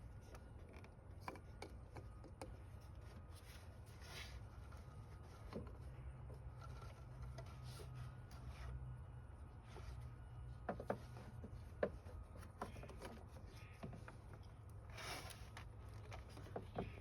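Scattered light clicks and knocks of hand work on car parts, with one sharper knock a little before the middle and a short rustle near the end, over a low steady hum.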